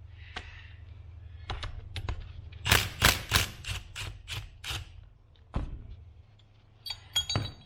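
Hand tools working on a power steering pump and its bracket: a run of sharp clicks and knocks, one more knock a little later, then ringing metallic clinks near the end as the pump is unbolted.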